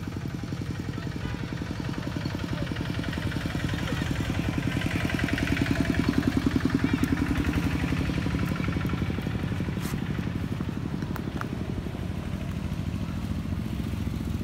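Motorbike engine running nearby with a fast, even pulse, growing louder toward the middle and then easing off.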